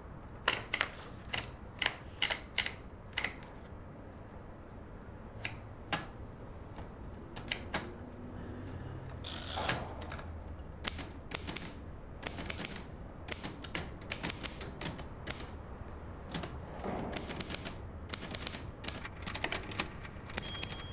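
An old Underwood manual typewriter: a few scattered clacks as the paper is set in, a longer mechanical rasp about ten seconds in, then bursts of rapid key strikes.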